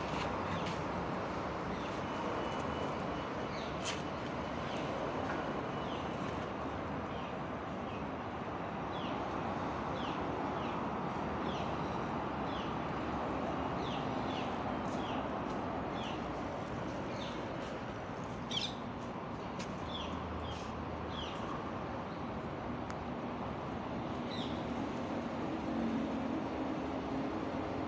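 Outdoor ambience: a steady rushing background noise, with a small bird calling in short, high, falling chirps about once a second through the middle.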